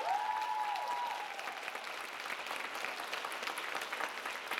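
Audience applauding, with a high held cheer over the clapping that falls away about a second in; the clapping then carries on a little more quietly.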